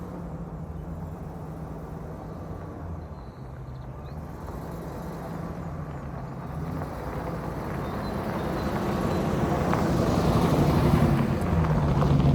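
A 2004 Damon Challenger motorhome's engine running steadily with a low hum, growing louder over the second half.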